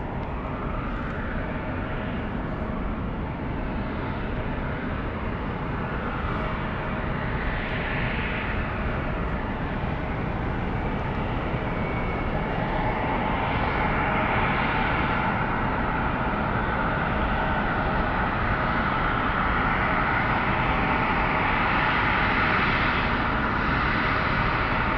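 A large vehicle's running engine or motor: a steady rumble and hiss with a steady hum. A whine swells and fades, then grows louder through the second half.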